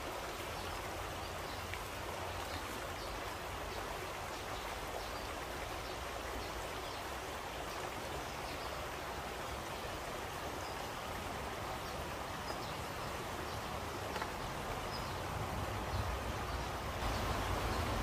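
Shallow, rocky mountain stream flowing, a steady rushing of water that grows a little louder near the end.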